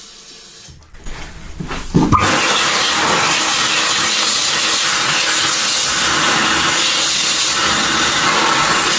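Newlec electric hand dryer starting up about two seconds in with a quick rising whirr, then blowing air steadily and loudly, with a faint motor hum under the rush of air.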